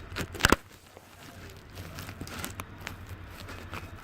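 Clicks and knocks of metal machine parts and tools being handled during a strapping-machine repair, loudest in a quick cluster about half a second in, then scattered light clicks.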